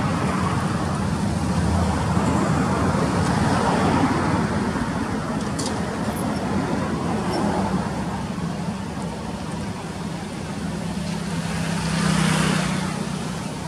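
Steady road traffic running, with one motor vehicle passing louder about twelve seconds in, its engine note rising and then fading. A single short click a little before halfway.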